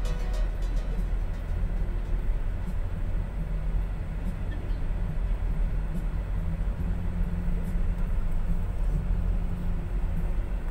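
Steady low rumble of a vehicle driving, engine and road noise heard from inside the cabin, with a faint wavering hum.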